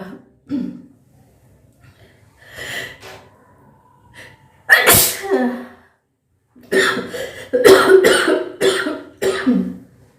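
A woman sneezing, set off by sniffing dried red chilli. One loud sneeze with a falling vocal cry comes about halfway through, then a quick run of five or six shorter explosive bursts near the end.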